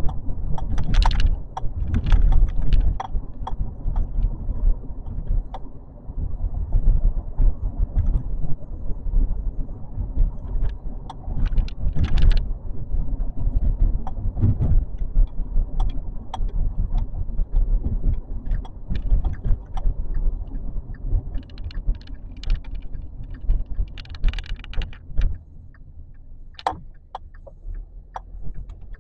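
Car driving, heard from inside the cabin: a steady low road and engine rumble with frequent small clicks and rattles. It gets quieter about 25 seconds in.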